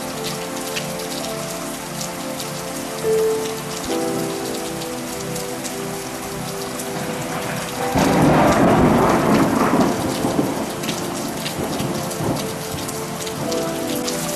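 Steady rain falling, with a loud clap of thunder about halfway through that rumbles for a couple of seconds and fades. Soft held music notes run underneath.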